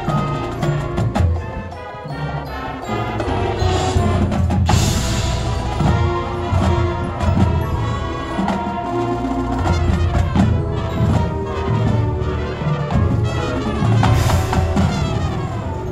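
Marching band playing live, with brass, drums and sideline percussion.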